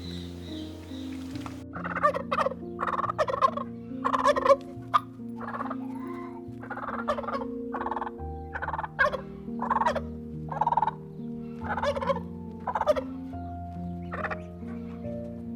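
Domestic fowl calling: a long series of short, separate calls, roughly one or two a second, over background music with held low notes.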